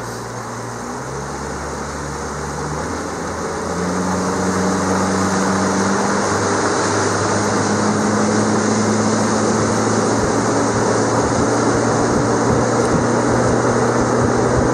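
Outboard motor pushing a Lowe aluminium boat under way. It is throttled up in a few steps over the first several seconds, growing louder and higher in pitch, then runs steadily.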